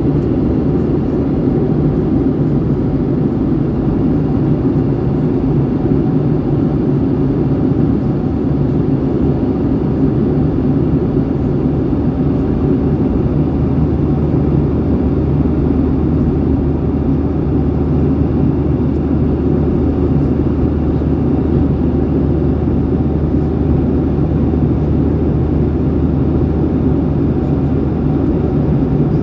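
Steady jet engine and airflow noise inside the cabin of a jet airliner, a continuous low roar with an even hum.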